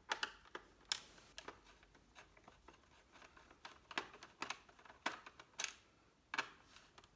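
Irregular small clicks and taps of a Phillips screwdriver turning out the screws of the memory cover on a laptop's plastic underside.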